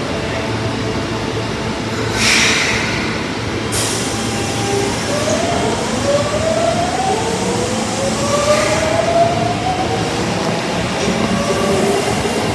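Osaka Metro 22 series subway train running, its inverter-driven traction motors giving a series of rising whines in steps as it picks up speed, over a steady running rumble. A short burst of hissing noise about two seconds in, and a sharp click just before the whines begin.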